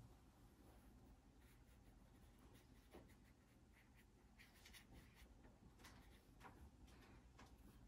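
Faint dabs and strokes of a watercolor brush on paper, a few soft touches mostly in the second half, over near silence.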